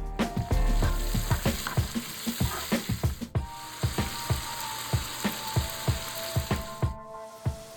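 Chicken frying in a pan with a steady sizzle while it is stirred, with many quick low knocks throughout. The sizzle cuts off suddenly near the end.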